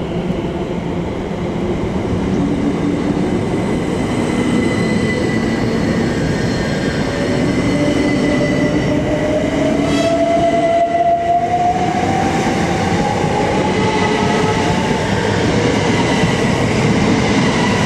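Two coupled Class 357 Electrostar electric multiple units running, getting louder, their traction motors giving a whine that rises steadily in pitch as the train picks up speed, over a steady rumble.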